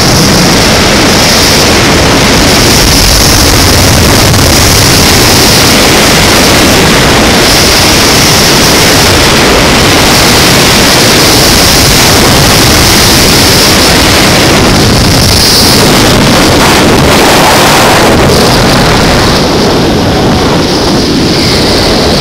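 Loud, steady rush of wind buffeting the microphone, with a high, even whir from a zip-line trolley's pulleys running along the steel cable.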